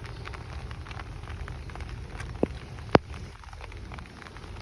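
Light rain falling, a steady hiss dotted with scattered drop ticks. Two sharper clicks come about two and a half and three seconds in, and the second is the loudest.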